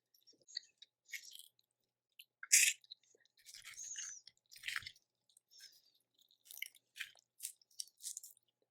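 Close-miked eating of a boiled shellfish claw: irregular crackles and clicks of shell being worked open, with wet, squishy chewing. One louder snap comes about two and a half seconds in.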